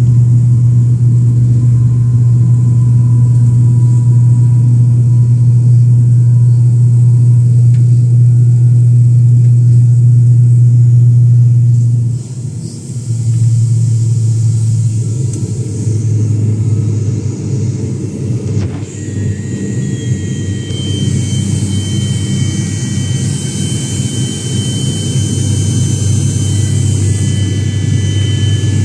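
Aircraft engines droning, heard inside the passenger cabin: a loud, steady low hum that dips briefly about twelve seconds in, with a higher whine joining in the last third.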